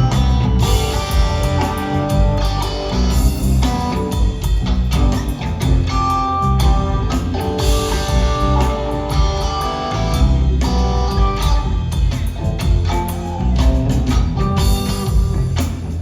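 Live rock trio playing an instrumental jam: electric guitar lines over bass and a drum kit, recorded on a phone from the audience.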